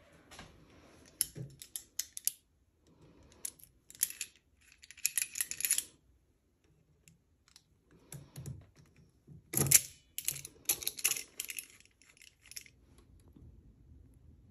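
Links of a heavy-gauge silver curb chain clicking and chinking against each other as the vise-clamped chain is twisted by hand and with locking pliers. Several bursts of quick metallic clicks with quiet gaps between, the loudest a little under ten seconds in.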